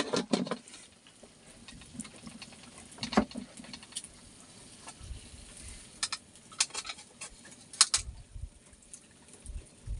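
Fish grilling in a hinged wire grill basket over a charcoal pot: scattered sharp crackles and clicks over a faint hiss, with a few dull knocks.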